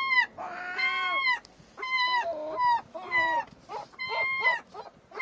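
Gulls calling: a run of short, arched, high-pitched cries, one after another, about one or two a second.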